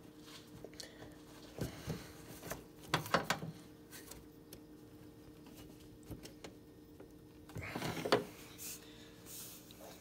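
Faint plastic clicks and scrapes of a turn signal bulb socket being worked and twisted into a pickup's headlight housing with a screwdriver, the louder handling sounds about 3 s and 8 s in, over a faint steady hum.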